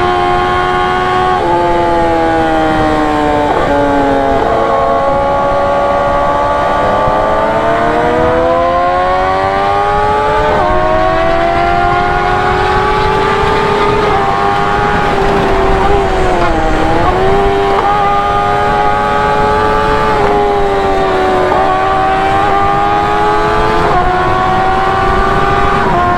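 Kawasaki ZX-10R inline-four sportbike engine at highway speed, heard from the rider's seat. The engine note climbs steadily with the revs, drops sharply on an upshift about ten seconds in, and dips briefly about two-thirds of the way through as the throttle is eased, with a steady rush of wind noise underneath.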